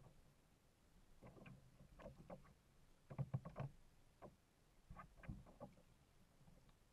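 Small knocks and splashes of water against a plastic kayak hull as the kayak moves on the lake, coming in clusters roughly once a second.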